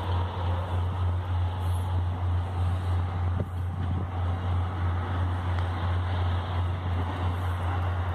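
Steady low drone of a diesel train engine running, with a light hiss above it and a few faint clicks about three and a half seconds in.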